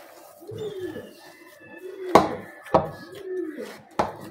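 A pigeon cooing in a steady series of low notes, each rising and falling, with three sharp knocks from hands working a potato mixture in a bowl about two, three and four seconds in.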